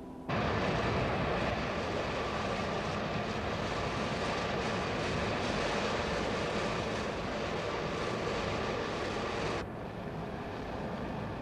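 Giant bucket-wheel excavator at work in an open-cut brown-coal mine: a steady, loud mechanical rumble with faint steady whining tones. It starts abruptly and drops off suddenly to a quieter hum about nine and a half seconds in.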